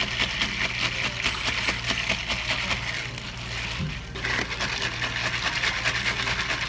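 Ice cubes rattling and clinking in plastic cups as iced ades are stirred rapidly with a straw. It pauses briefly about four seconds in, then starts again as the next cup is stirred. A low steady hum runs underneath.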